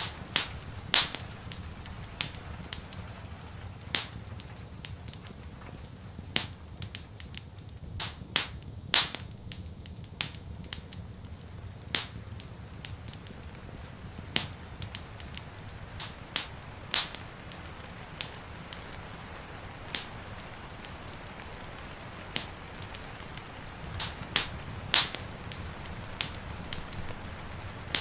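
Wood fire crackling in a fireplace: irregular sharp pops and snaps, a few loud ones every second or two, over a steady low rumble of the flames and a soft even hiss of rain.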